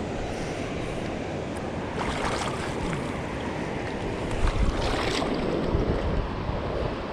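Rushing river water, a steady noisy wash with wind buffeting the microphone. Two brief hissier surges come about two seconds in and around five seconds.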